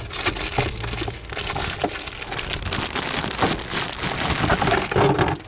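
Packaging rustling and crinkling, with many quick irregular crackles, as a new pollen filter is unwrapped.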